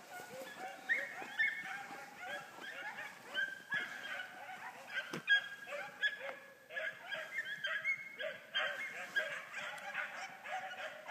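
A pack of hounds, about five dogs, yipping and baying over one another in a continuous chorus of short, arching calls.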